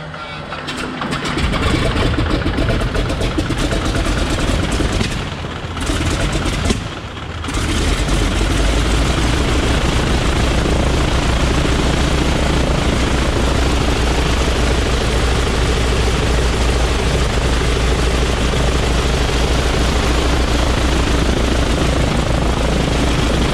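Wright R-975 nine-cylinder radial engine of a BT-15 trainer starting: it catches a second or two in, falters and dies away twice, then settles into steady running from about eight seconds in. The engine-driven fuel pump is defective, so fuel is being hand-pumped with the wobble pump.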